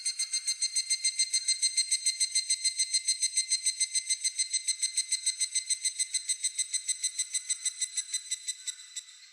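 Higurashi (evening cicada) calling: a fast, even run of ringing pulses, about nine a second, that fades out near the end.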